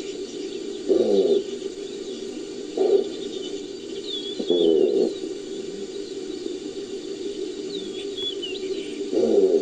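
Designed creature sound effect built from gazelle and wildebeest recordings: four short calls, each under a second and falling in pitch, about a second in, near three seconds, near four and a half seconds and near the end. Under them runs a steady low drone with faint bird chirps.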